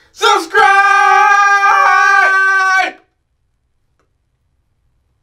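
A voice singing one long held note, with a couple of brief dips in pitch, cutting off about three seconds in.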